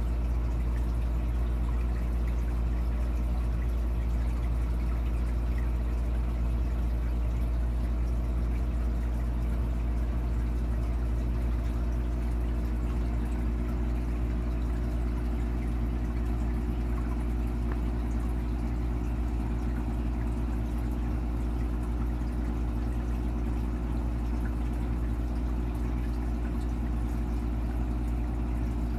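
Aquarium filter running: a steady electrical hum with a faint hiss of moving water.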